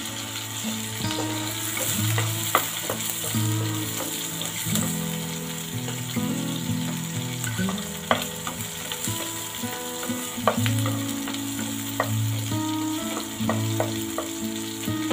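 Fish steaks and whole garlic cloves frying in hot oil in a pan, sizzling steadily. A wooden spatula stirs the garlic, giving a sharp knock against the pan every second or two.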